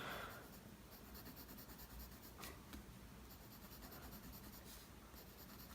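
Faint scratching of a mechanical pencil's lead on paper as it draws strokes.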